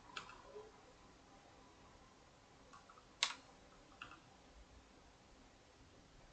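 A few separate computer keyboard key and mouse clicks over quiet room tone, the sharpest about three seconds in and another a second later.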